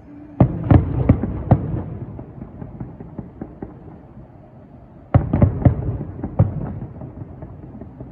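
Aerial firework shells bursting in two volleys of four or five sharp bangs each, a few seconds apart, every bang trailing off in a rolling rumble. A steady low hum runs underneath.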